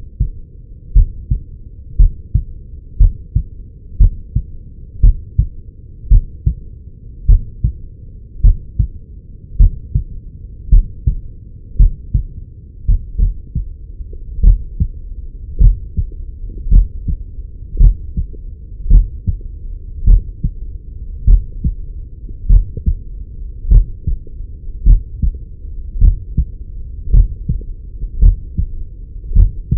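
A human heartbeat picked up through a Stemoscope electronic stethoscope pressed to the chest: regular, deep lub-dub thumps at about one beat a second.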